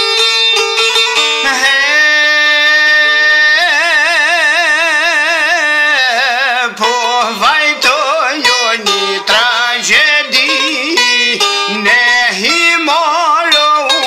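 Music: plucked strings, joined a few seconds in by a held melody line with a wide, wavering vibrato.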